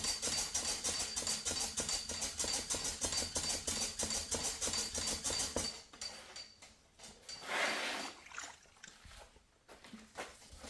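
Wet hand-sanding of fresh automotive clear coat with 2000-grit paper on a sanding block: quick, even back-and-forth rasping strokes in straight lines, denibbing out a dirt nib. The strokes stop about six seconds in, and one short rub follows a couple of seconds later.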